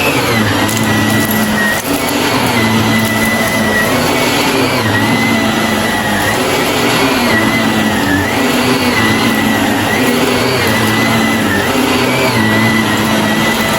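Shark vacuum cleaner running steadily, its high motor whine dipping briefly in pitch every second or two.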